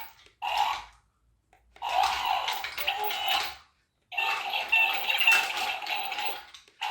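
Chad Valley remote-control toy robot playing its built-in electronic robot sound effects through a small speaker, in three bursts: a short one near the start, then two longer ones with brief silences between.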